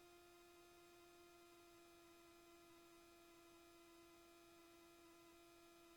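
Near silence: a faint, steady hum at one unchanging pitch.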